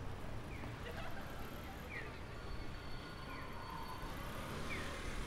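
Japanese audible pedestrian crossing signal chirping: short falling electronic tones repeating about every second and a half, with fainter answering chirps between, over crowd chatter and a low traffic rumble.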